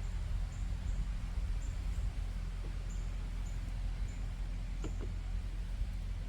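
Outdoor ambience: a steady low rumble with short high-pitched chirps repeating every half second to a second, and two faint knocks near the middle.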